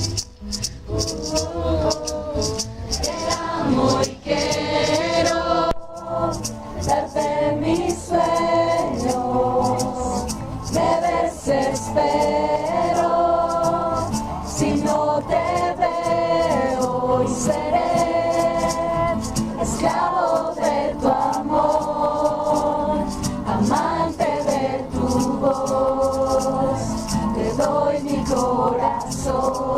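Music: a song with several voices singing together over light rhythmic percussion.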